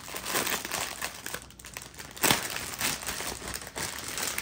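Clear plastic wrap crinkling as it is unwrapped from a bundle of small bags of diamond painting drills, in irregular crackles with one sharper, louder crackle about two seconds in.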